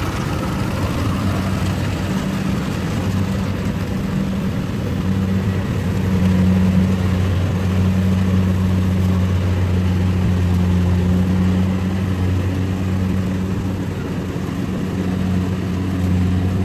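Rice harvester's engine running steadily with a low, even drone that grows a little louder about six seconds in.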